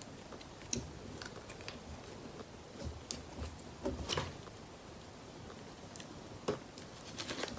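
Faint, scattered light clicks and taps over low room noise, with a quick run of them near the end.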